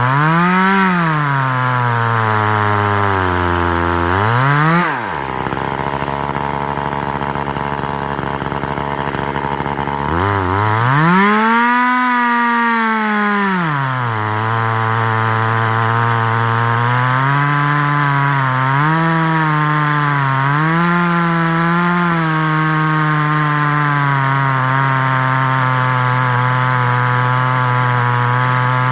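Two-stroke chainsaw engine on a chainsaw mill, revving up and dropping back several times, then running at a steady, lower pitch under load as it cuts, the note dipping and recovering a few times.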